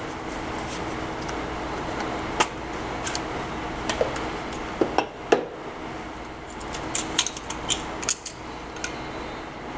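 Scattered sharp clicks and taps of small hard objects being handled, with a cluster of them about seven to eight seconds in, over a steady background hum.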